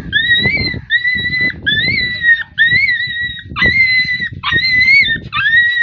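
A dog yelping in distress, about nine high, drawn-out cries in quick succession, each lasting around half a second, as it is dragged out of a hole by its hind legs.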